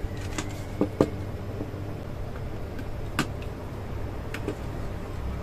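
A handful of light clicks and taps from wires being fitted into the plastic terminal block of an electronic temperature controller, over a low steady hum.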